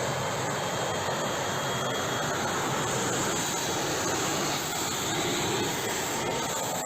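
T-80BV tank's GTD-1000TF gas turbine engine running: a steady, loud jet-like whistle and rush.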